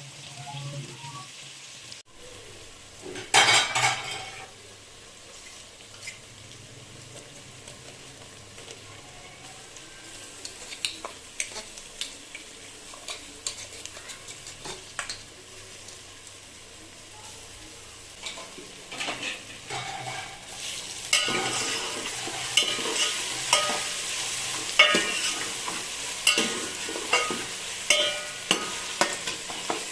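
Food frying in a pan while a spoon stirs it, with many small clicks and scrapes of the spoon against the pan. There is a brief loud burst of sizzling about three seconds in, and the sizzling and stirring grow louder about two-thirds of the way through.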